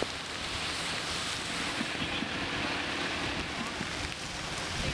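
Fast-flowing floodwater rushing and churning, a steady rush of water noise.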